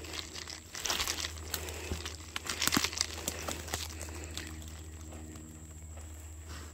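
Someone walking through dense brush: leaves rustling and twigs crackling and snapping underfoot and against the legs, in irregular bursts that are thickest in the first half and then thin out.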